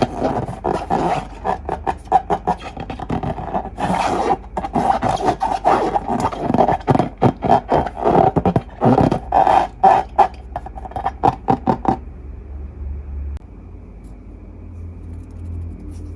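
Rubber balloon squealing in rapid stuttering bursts around one pitch, stopping about twelve seconds in.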